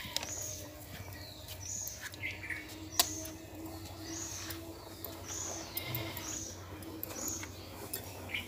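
A small bird chirping, short high notes repeated about once a second, with a sharp click about three seconds in.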